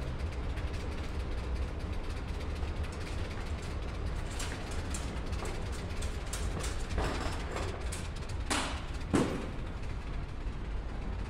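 Steady low rumble of street traffic, with a scattering of short clicks and knocks in the second half, the loudest a little after eight and nine seconds in.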